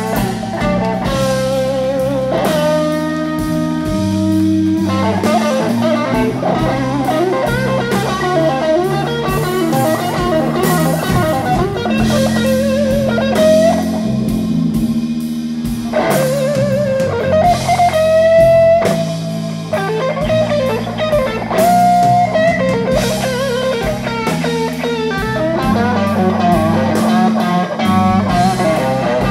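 Live blues band: a lead electric guitar on a Stratocaster-style instrument plays long sustained, bent notes with vibrato over a walking bass line and drum kit.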